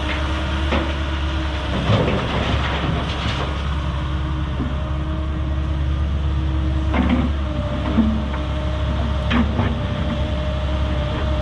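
Excavator engine running steadily while rock rubble clatters and knocks several times, about two seconds in and a few more times later, as it is scooped and loaded into a dump truck.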